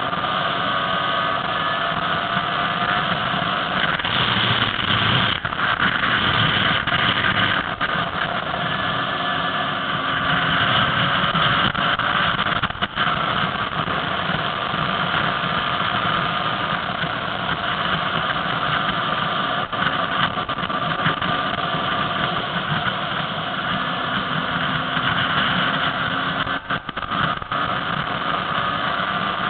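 Enduro motorcycle engine running as the bike rides along the road, heard from on board. The engine's pitch drifts up and down with the throttle over a steady rush of wind and road noise.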